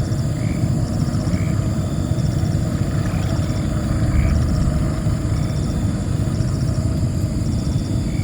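Outdoor ambience: a steady low rumble, with insects trilling in short repeated bursts and small chirps about twice a second during the first half.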